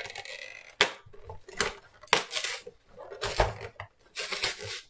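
Cardboard advent-calendar door being torn open along its stiff perforations, in a series of short rips and scrapes that do not come free easily.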